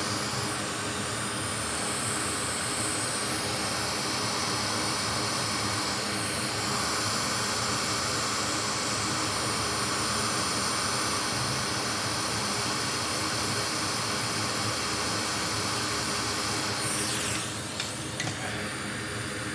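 Hot air rework station blowing a steady hiss of hot air over a small chip on a MacBook logic board to melt the solder under it, easing off a little near the end.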